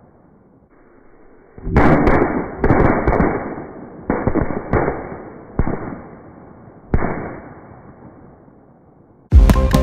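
Large firecrackers going off: about six loud separate bangs at uneven intervals, each with a long trailing echo, then fading out. Loud music starts right at the end.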